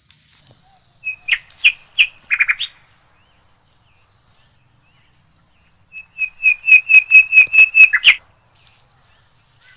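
A bird calling close by with sharp, repeated chirps: a short burst about a second in, then a longer, loud run of about a dozen rapid chirps around six to eight seconds in.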